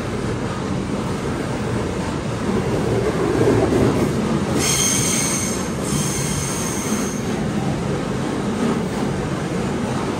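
Qube freight train's covered hopper wagons rolling past with a steady rumble of wheels on rail. A high-pitched wheel squeal starts about four and a half seconds in, breaks off briefly near six seconds and fades out around seven.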